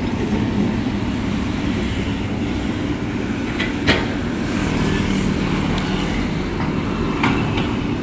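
Komatsu crawler excavator's diesel engine running steadily during road repair work, with two sharp knocks, about four seconds in and again near seven seconds.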